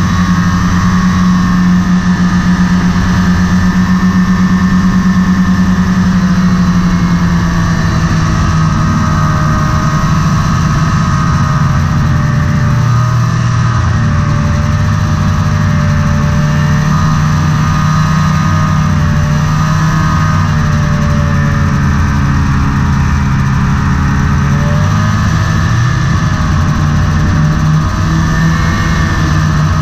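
Snowmobile engine running continuously while riding along a trail. Its note dips slightly about seven seconds in, then rises and falls a little.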